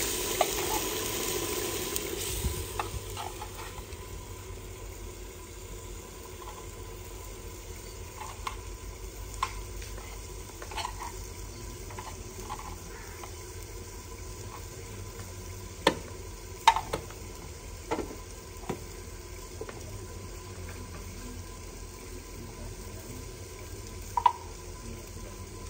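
Onion-tomato masala sizzling in oil in a clay handi over a wood fire, stirred with a wooden spoon in the first two or three seconds and then left to sizzle steadily. A few sharp clicks and taps of a spoon against plastic spice containers come in the second half.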